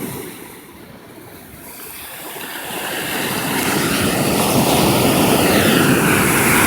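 Ocean surf: the rushing hiss of a wave builds over a few seconds and then holds loud as the water washes up the beach.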